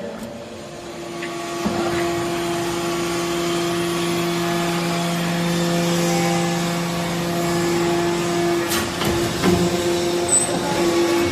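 Hydraulic scrap-metal baler running: a steady hum with a constant pitch for most of the stretch. Its lower tone cuts out near the end, followed by a few sharp knocks.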